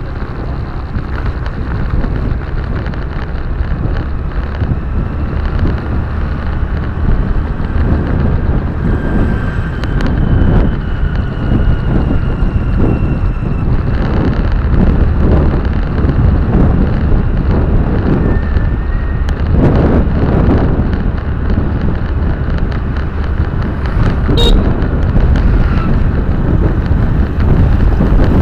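Steady road and engine rumble heard from inside a moving car, with wind noise on the microphone.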